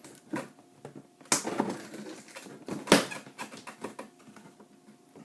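Cardboard shipping box being handled and opened: a string of knocks, taps and scrapes, the loudest about three seconds in.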